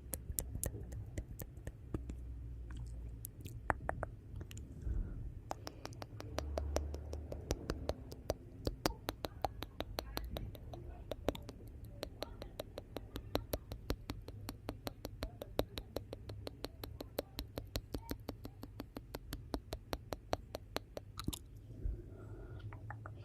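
Wood fire in a fireplace crackling: dense, irregular sharp pops and snaps, several a second, over a low steady rumble of the flames.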